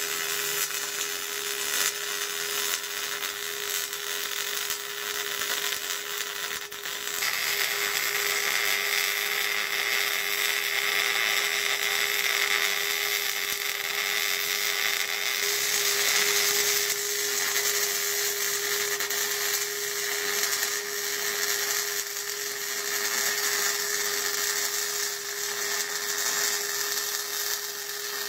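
Miller 211 MIG welder running beads that join the steel truss to the 14-bolt axle housing: the steady hiss of the welding arc, with a steady low hum beneath it. The hiss turns brighter about seven seconds in.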